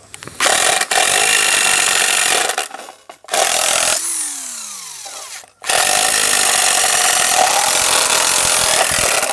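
Cordless power driver running a screwdriver bit against the deep-set screws of a plastic takoyaki-maker housing, in three long bursts. The motor's whine falls as it winds down after the second burst. The bit is too thick to reach into the recessed screw holes, so it spins without backing the screws out.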